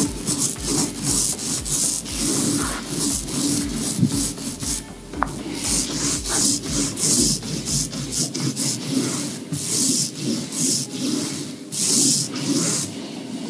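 Hand brush sweeping dust off a wooden board into a plastic dustpan, in quick repeated scratchy strokes, about two a second.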